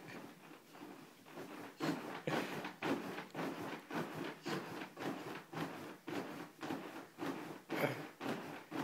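Wooden crib knocking and rattling in a steady rhythm, about two knocks a second, as a toddler bounces on the mattress while gripping the top rail.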